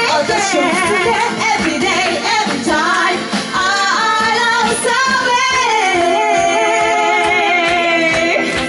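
Two women singing a J-pop song into microphones over backing music with a steady beat, one long held note in the second half.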